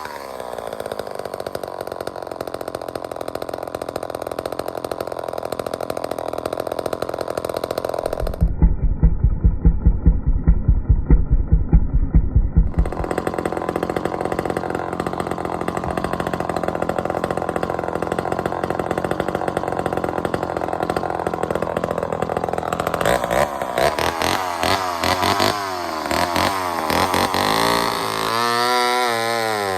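Vintage Lombard two-stroke chainsaw running, first at a steady speed, then revved up and down repeatedly in the last several seconds. For about four seconds near the start there is a heavy, muffled low pulsing. The saw runs very rich when the trigger is pulled and then leans out, which the owner points to as a carburettor problem.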